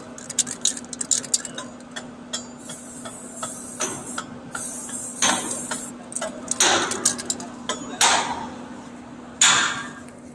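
Aerosol spray can for dye-penetrant weld inspection: quick rattling clicks for the first few seconds as the can is shaken, then four short hissing sprays about a second apart.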